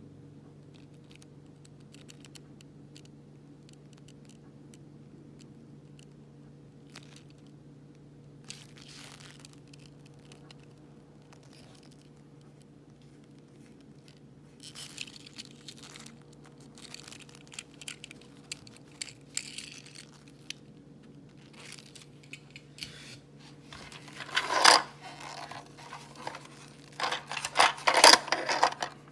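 Toy packaging being opened and handled: cardboard and plastic crinkling, scraping and tearing in scattered bursts, sparse at first and busier and louder in the second half, with the loudest tears near the end. A faint steady hum sits underneath.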